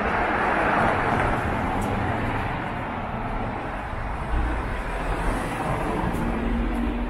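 A car passing on a city street, its tyre and engine noise loudest in the first couple of seconds and then fading. A low steady hum starts near the end.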